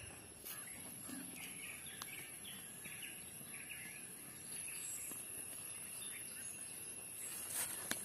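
Faint outdoor ambience: scattered short bird chirps over a steady high-pitched insect drone, with a few light clicks near the end.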